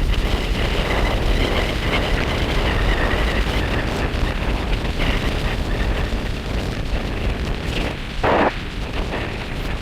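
Strong storm wind buffeting the microphone in a steady, rumbling rush, with one short, louder sound about eight seconds in.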